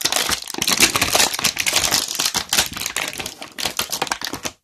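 Clear plastic wrapping around a wrestling action figure crinkling and crackling as it is handled and pulled open by hand. It stops abruptly near the end.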